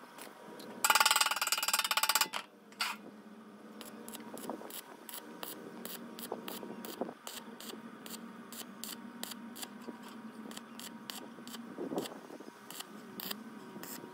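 Corded angle grinder working a sheet-steel box: a loud burst of grinding about a second in, then a long run of quieter, irregular ticks and scraping as the disc touches the metal.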